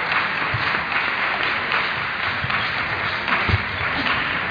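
Applause and clapping from spectators in a large sports hall, as a steady dense patter. A few low thumps stand out, the loudest about three and a half seconds in.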